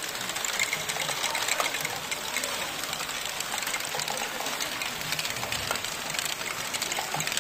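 LEGO Great Ball Contraption modules running: motors and plastic gears whirring, with a steady rapid clatter of small plastic balls rolling and dropping through the track.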